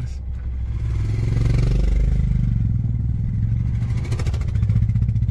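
Motor vehicle engines running, with a motorcycle among them: the engine sound rises in pitch over the first two seconds, then settles into a steady, fast-pulsing drone.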